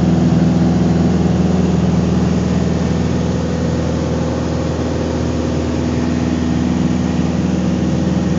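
Beechcraft Debonair's six-cylinder piston engine and propeller droning steadily in flight during the climb after takeoff, heard from inside the cabin.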